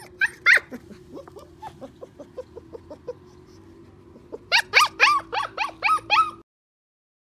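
A 45-day-old German Shepherd puppy whining and yipping: a couple of high-pitched yips, then a run of short, softer whimpers, then a quick string of about seven loud, high yelps that stops abruptly.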